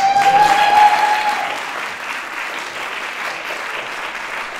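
Audience applauding, with one long high cheer from the crowd that rises and holds for about the first second and a half.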